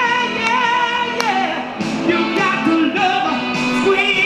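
A woman sings a soul song into a handheld microphone. Her voice is amplified, and she holds long notes with vibrato and slides between pitches.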